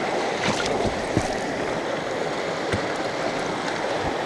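Small mountain stream running over rocks, a steady rushing babble of water. A few soft low thumps sound over it, several in the first second or so and two more later.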